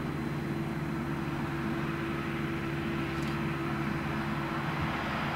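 A motor or engine running steadily with an even, unchanging drone.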